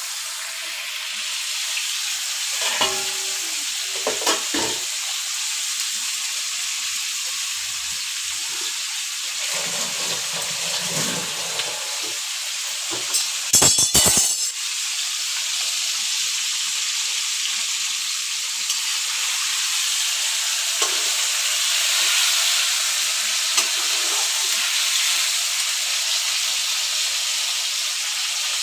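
Indian mackerel (bangda) frying in oil in a grill pan, a steady sizzle throughout. A few light knocks come early, and there is a brief clatter about halfway.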